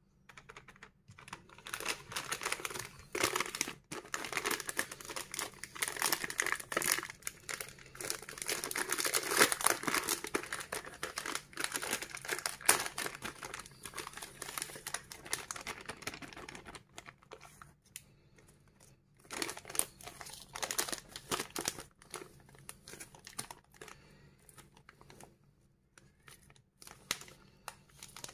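Plastic ice-lolly wrapper being torn open and crinkled by hand: dense crackling for about the first sixteen seconds, then scattered, fainter rustles.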